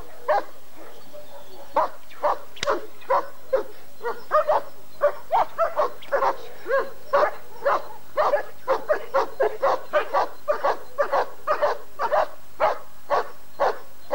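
German shepherd barking in a steady series at the helper's bite sleeve, sparse at first and then quickening to about two or three barks a second: the guarding bark of protection work.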